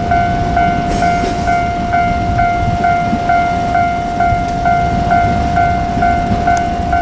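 Level-crossing warning bell ringing in an even repeating chime, about two strikes a second, over the low rumble of a JR Kyushu 817 series electric train running past the crossing.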